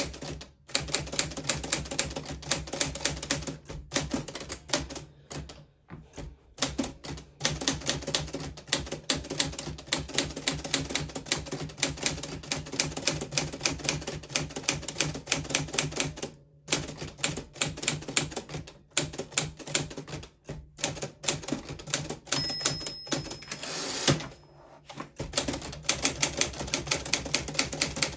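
Typing on a 1940s Smith Corona Silent manual typewriter: a fast, uneven run of key clacks with a few short pauses, and one louder clack near the end.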